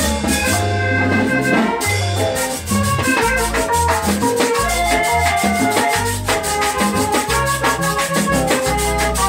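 Accordion-led band music: accordion melody over electric guitar and low bass notes, with timbales, drums and a churuca scraper keeping a fast, even rhythm.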